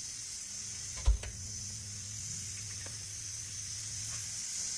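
Compressed air hissing steadily as it pressurizes a Lycoming O-320 cylinder, holding the valve shut on its seat. A single thump about a second in.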